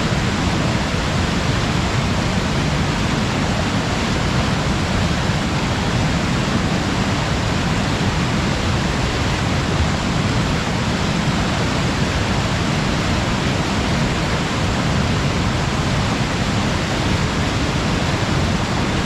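Steady rushing of water cascading over rocks in a river, an even, unbroken noise heaviest in the low end.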